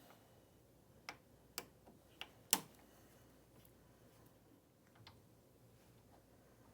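A few light metallic clicks as the Allen screws are taken out of the lane machine's transfer roller adjustment plate: four sharp ticks within about a second and a half, the last the loudest, then one faint tick.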